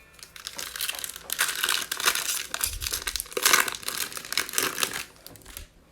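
Crinkling and tearing of a trading-card pack's plastic wrapper as it is ripped open and crumpled: a dense crackle lasting about four seconds.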